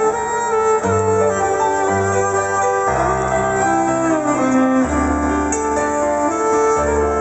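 Live band playing an instrumental passage: a violin carries a sustained melody over piano and low bass notes, with the melody stepping downward about halfway through.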